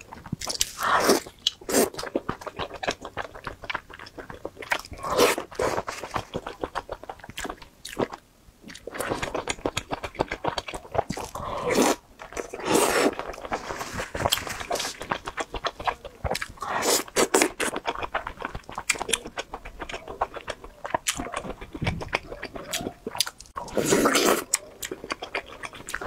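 Close-miked biting and chewing of broth-soaked oden: fried fish cakes and fish balls on skewers. A steady run of small mouth clicks is broken every few seconds by a louder bite.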